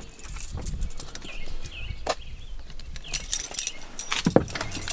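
Car keys jangling, with scattered clicks and knocks, as someone climbs into the driver's seat of a minivan. The jangling and clicking grow busiest near the end.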